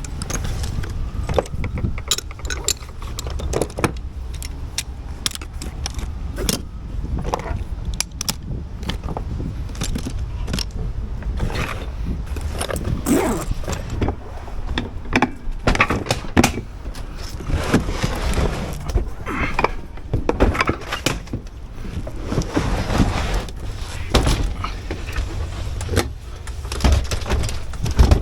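Repeated clanks, clicks and rattles of tools and metal gear being handled and packed away, over a steady low rumble.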